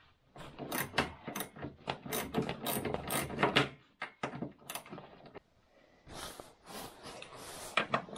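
Socket ratchet clicking in quick runs as the mechanic works bolts on the snowmobile engine, with metal tool clatter. The clicking is dense for the first few seconds, then starts again after a short pause.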